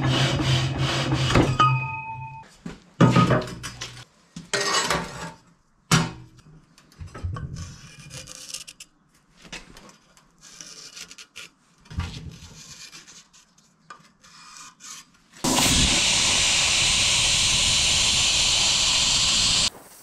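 Metal work with tools: rapid sawing strokes over a steady hum for the first second and a half, then scattered scraping and clinking, then a loud, even hiss for about four seconds that starts and stops abruptly.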